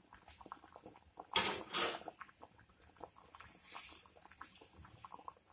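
Seer fish curry boiling in a clay pot: the thick gravy bubbles with many small, irregular pops and plops. It stays at a steady boil without spilling over. There are two louder hisses, about one and a half and three and a half seconds in.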